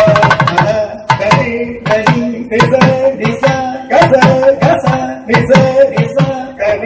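Mridangam playing a dense, quick run of strokes, its bass strokes sliding down in pitch, over a steady held tone.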